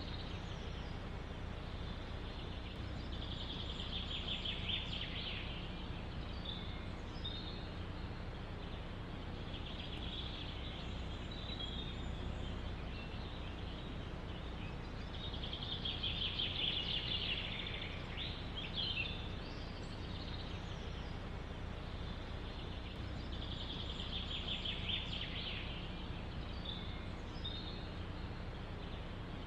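Songbirds chirping in a forest, one trilled phrase coming back every six to eight seconds with shorter chirps between, over a steady low rush of wind.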